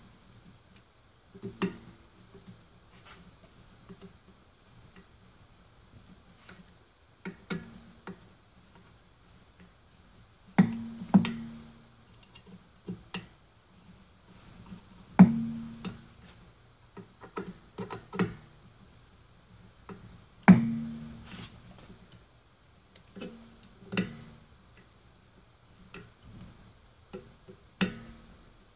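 Scattered metallic clicks and taps of a hand tool working screws at a direct-drive ebike hub motor's cover plate. A few louder knocks leave a short ringing tone in the metal wheel.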